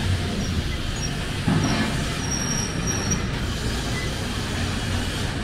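City street traffic with a heavy vehicle's engine running close by, a steady low rumble. A sudden louder noise comes about a second and a half in.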